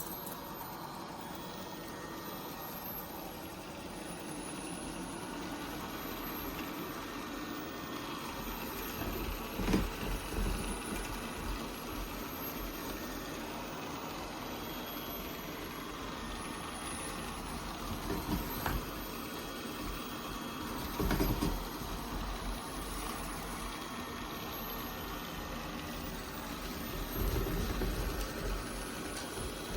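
ILIFE A12 Pro robot vacuum running with a steady whirring hum while it stays stuck in one spot instead of moving on, with a few short knocks now and then.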